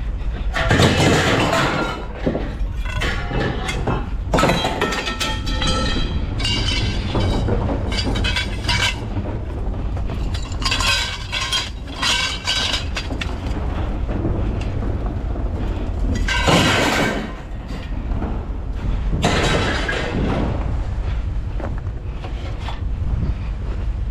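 Truck driving, with a steady low engine and road rumble broken by bursts of clinking and rattling every few seconds.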